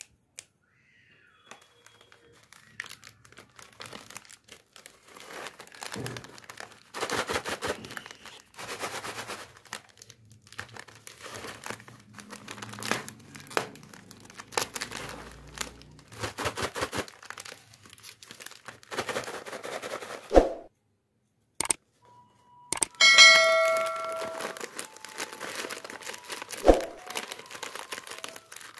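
Crinkly foil snack packets being handled and rustled, with a short ringing ding about three-quarters of the way in. Near the end, scissors cut into a foil packet.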